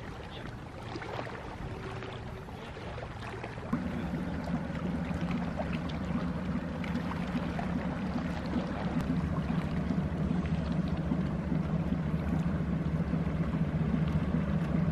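Inland motor cargo ship's diesel engine droning low and steady as it passes close by, coming in about four seconds in and slowly growing louder, over the wash of water.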